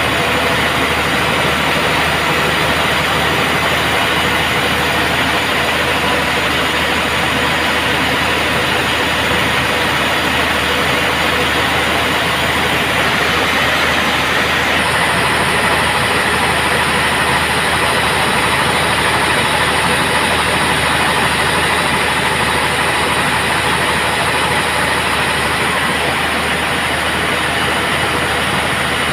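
Band sawmill running steadily, a loud, even mechanical noise with a slight change in its high hiss about halfway through.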